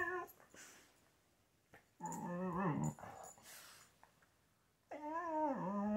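Husky talking: a short call at the start, then two drawn-out moans that waver up and down in pitch, one about two seconds in and a longer one from about five seconds in.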